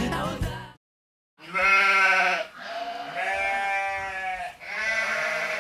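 Music fading out in the first second, then, after a brief pause, three long bleats one after another.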